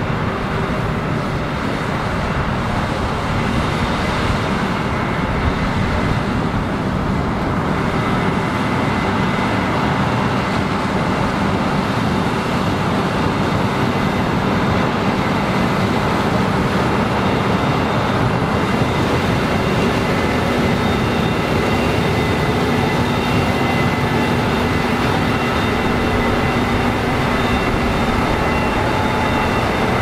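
Case IH Axial-Flow combine running under load while harvesting corn: a steady engine and machinery drone with a few steady high whines.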